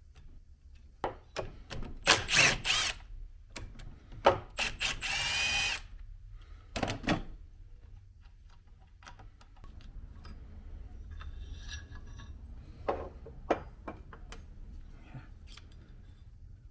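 Tool work on the EJ207 boxer engine's connecting-rod caps: scattered metal clicks and clanks, and a short whirring spin of a power driver, rising in pitch, about five seconds in.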